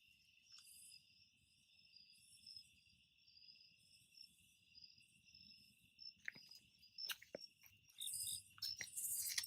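Faint night insects, crickets among them: a steady high trill with a hissy pulse about once a second. Several sharp clicks join in during the last few seconds.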